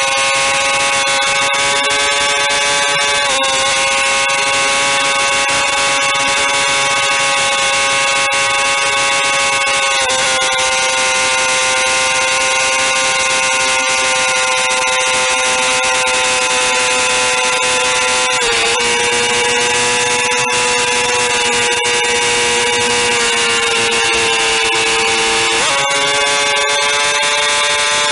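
Motorcycle engine running at steady high revs over rushing wind, its pitch stepping abruptly a few times with throttle or gear changes.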